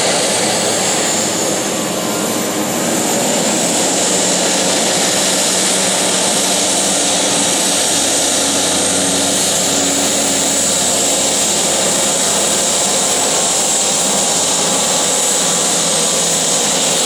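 A large radio-controlled English Electric Lightning model's jet engine running on the ground, a steady loud rush with a high whine over it.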